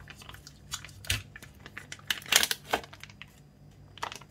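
Thin seal being peeled off a plastic tub of mascarpone: crinkling and tearing in short bursts, loudest a little past the middle.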